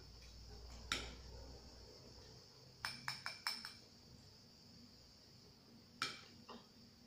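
Metal fork clinking against a ceramic plate and a small glass bowl while eating: a single clink about a second in, a quick run of four or five clinks around three seconds, and two more near the end.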